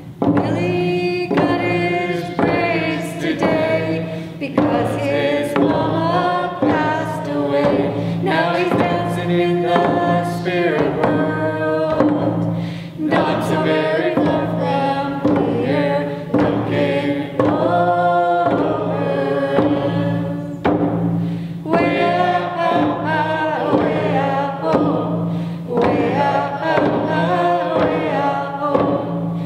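Hand-drum song: several voices singing together over a steady beat on round frame hand drums struck with beaters.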